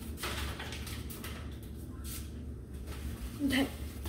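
Faint knocks and rustles of someone moving about at a kitchen cupboard, opening it and handling a packaged food box.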